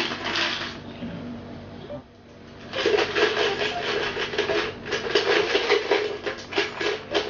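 Coins rattling and clinking inside a panda-shaped coin bank as it is shaken: a short rattle at the start, then a quick, continuous run of clinks from about three seconds in.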